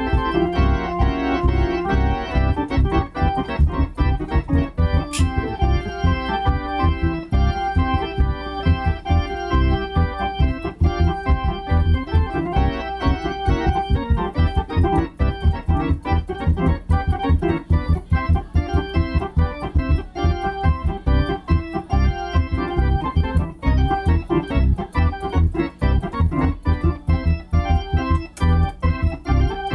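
Two-manual console organ being played: sustained chords and a moving melody over a steady, rhythmic bass.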